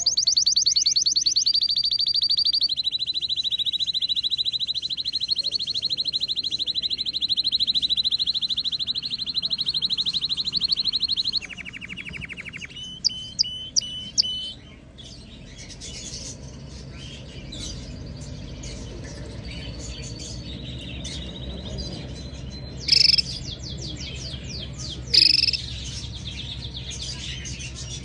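Domestic canary singing: a long, very fast, even trill held for about eleven seconds, then a brief lower trill and a few short notes, followed by quieter song with two short loud bursts near the end.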